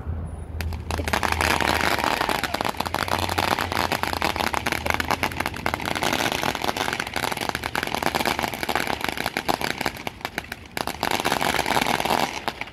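Ground fountain firework spraying sparks with a dense, steady crackle, starting about a second in and cutting off sharply near the end.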